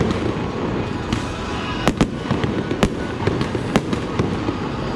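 Fireworks show going off: a dense, steady crackle with several sharp bangs, the loudest about two and three seconds in.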